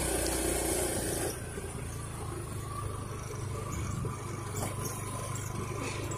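Honda Click scooter's single-cylinder four-stroke engine running steadily as it rides off, a low hum with road noise. A higher hiss drops away about a second in and the sound settles softer.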